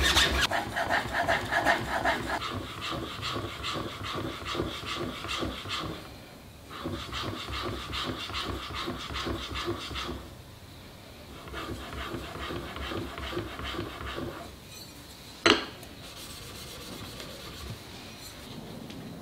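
Hand plane blade being honed, rubbed back and forth across sharpening plates in quick, rhythmic scraping strokes, in three bouts with short pauses between them. A single sharp knock about fifteen seconds in.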